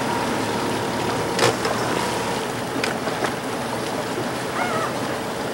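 Steady waterfront noise: a rushing sound of water and air under a faint steady hum. A few sharp clicks come through it, and a brief wavering chirp is heard about four and a half seconds in.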